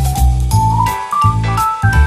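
Background music: an upbeat instrumental with a bass line changing note about twice a second, a held melody and a steady drum beat.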